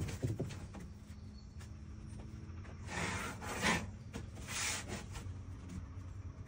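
Marking out on a flat sheet with a framing square and pencil: three short scratching strokes about three to five seconds in, over a low steady hum.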